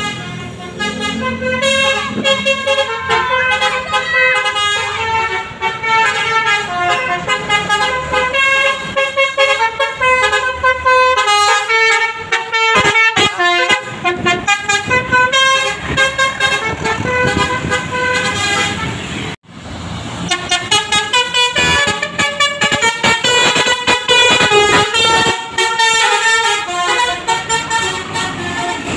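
Basuri 'telolet' musical air horn on a tour bus playing a quick stepped melody of loud horn notes. The melody breaks off for a moment a little past halfway, then plays on.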